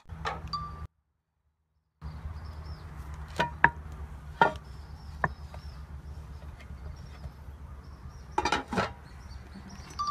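A few sharp clinks and knocks of crockery and an aluminium pot and lid being handled, over a steady low hum.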